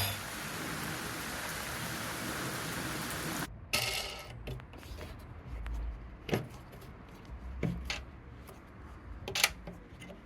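Steel pieces being handled at a workbench: a steady hiss for about three and a half seconds after the cutting stops, then scattered light metallic clinks and knocks.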